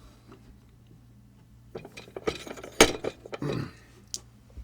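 Small metal tool parts clinking and clattering as they are handled and set down, with a few sharp clinks about two to three seconds in.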